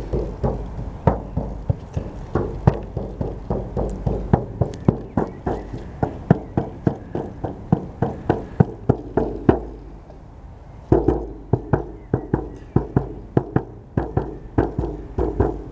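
Frame drum (buben) beaten in a steady rhythm, about three strokes a second, pausing briefly about ten seconds in before the beating resumes.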